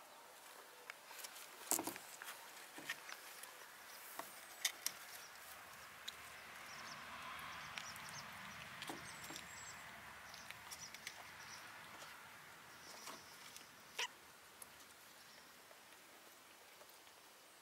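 Kittens scampering and scuffling on a concrete ledge: faint scattered taps and scuffs of paws, with a few sharper clicks.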